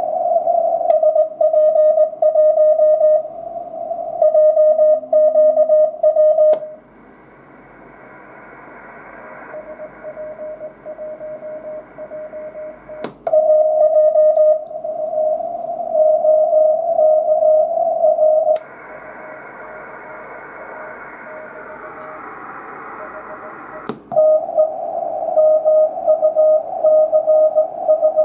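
Morse code (CW) signal received on an Icom IC-R71E shortwave receiver on the 20 m band, heard as a loud keyed tone of dots and dashes with band hiss behind it. Four sharp clicks come as the Daiwa AF-606K audio filter is switched: twice the tone drops back under a wider, hissier band of noise for several seconds, then returns strong and clean.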